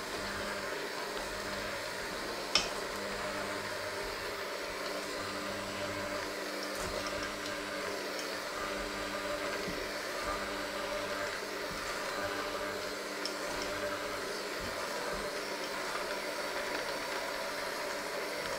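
Electric hand mixer running steadily, its beaters churning a crumbly flour mixture in a stainless steel bowl, with one sharp click about two and a half seconds in.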